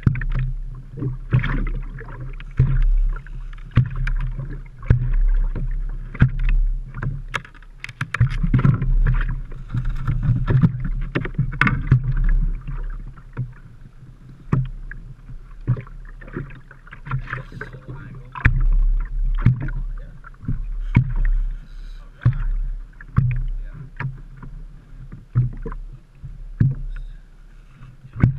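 Waves slapping against the hull of a small boat, with irregular low thumps and many sharp knocks and rattles as the boat rocks.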